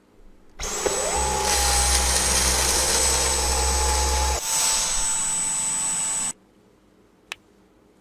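Cordless stick vacuum cleaner switched on: the motor spins up with a rising whine, then runs steadily with a high whine. A lower rumble drops away about four seconds in, the vacuum cuts off suddenly about six seconds in, and a single click follows.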